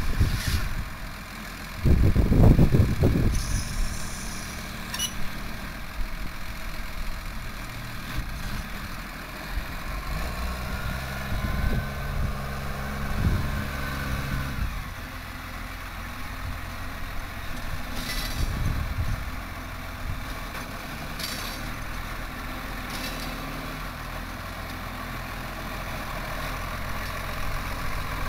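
Case IH MX135 tractor's six-cylinder diesel engine running steadily while it works a trailed bale wrapper. There is a loud low rumble about two seconds in and a few short clicks later on.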